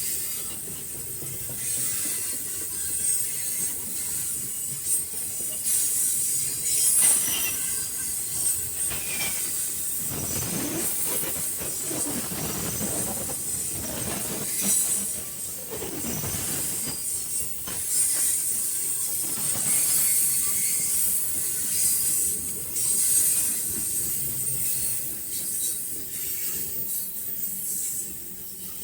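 Freight train of boxcars rolling by, steel wheels squealing and hissing high-pitched over rail clatter, fuller in the middle stretch.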